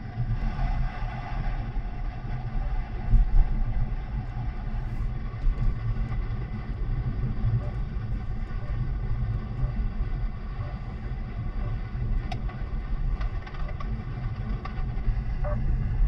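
Car cabin noise while driving on a wet road: a steady low rumble of engine and tyres, with a few faint clicks in the last few seconds.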